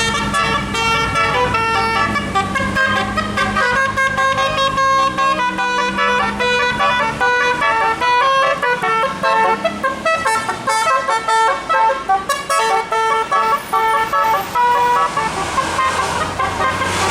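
A bus's multi-tone telolet horn playing a fast melody of short notes that change pitch rapidly, with a low steady engine drone underneath.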